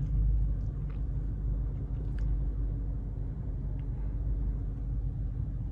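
Dodge Charger R/T's 5.7-litre Hemi V8 running steadily at low revs as the car creeps along, a low even rumble heard from inside the cabin.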